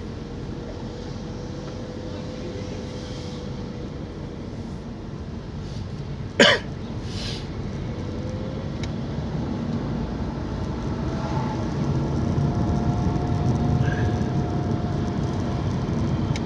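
Car running at low speed, heard from inside the cabin: a steady low engine and road rumble that gets louder in the second half. One short, sharp cough about six seconds in.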